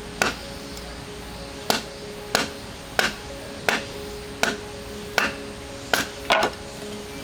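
Repeated sharp chopping strikes, about one every 0.7 seconds, the last a quick double strike, over background music.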